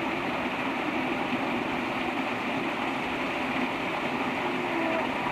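Water falling in a steady curtain over a dam wall and splashing onto the stone ledge below, a constant rushing sound.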